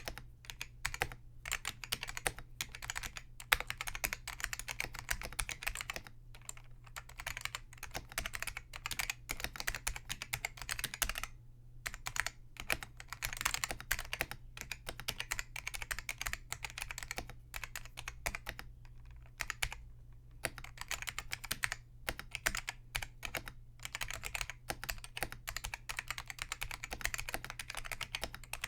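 Continuous fast typing on a Focus FK-2001 keyboard with Hua-Jie T1 Alps-clone switches, click leaves removed to make them linear, so each keystroke gives a dull clack with a strong tactile bump rather than a click. The typing stops briefly twice.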